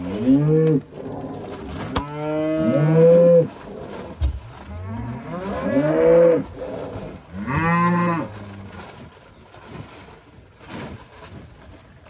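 Beef cows mooing at close range: four moos in the first eight or so seconds, the longest lasting about a second and a half, each rising and then falling in pitch.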